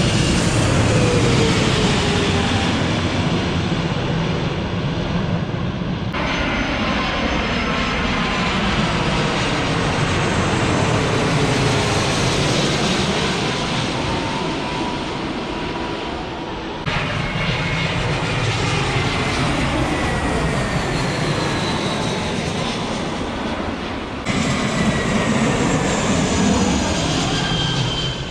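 Jet airliners passing low overhead near the runway: loud engine noise with whining tones that slowly fall in pitch as each aircraft goes by. The sound changes abruptly three times, about 6, 17 and 24 seconds in, as one pass gives way to the next.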